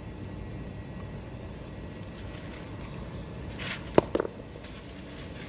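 A single sharp metallic clack about four seconds in, right after a brief scrape, then a couple of lighter knocks, as a rusty scrap of metal on a magnet-fishing magnet is handled, over a steady low outdoor rumble.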